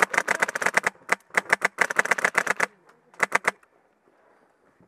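Airsoft rifle firing on full auto in several short bursts of rapid cracks, about ten shots a second, stopping about three and a half seconds in.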